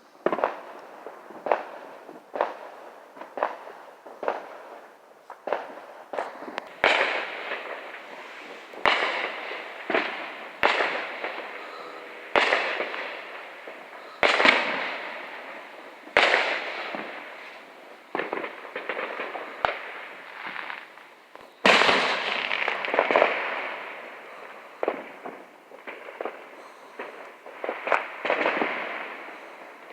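Fireworks going off in a steady series of sharp bangs about every second or two, each followed by a fading tail, with a louder, denser cluster of bursts about two-thirds of the way through.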